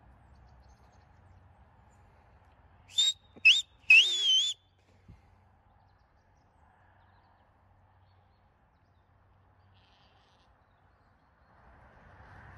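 Three sharp, high whistles about three seconds in, two short and a longer wavering one: a shepherd whistling to call his sheep. A low rushing noise builds near the end as the flock approaches.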